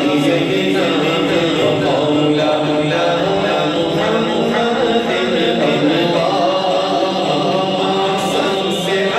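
Unaccompanied male voice singing a slow devotional chant, with another man's voice joining in.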